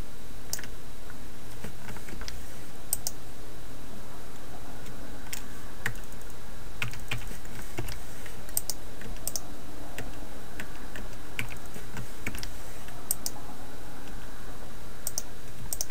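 Computer keyboard and mouse clicking in scattered, irregular single clicks as 3D-modelling shortcuts and menu commands are entered, over a steady low hum.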